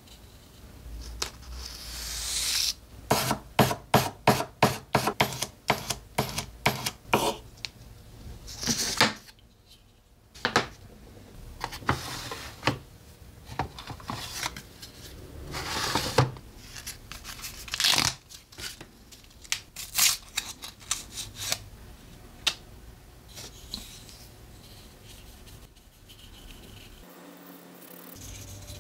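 Hands handling tools and small materials at a workbench. A quick run of sharp clicks and snaps comes a few seconds in, followed by scattered rustling, tapping and rubbing.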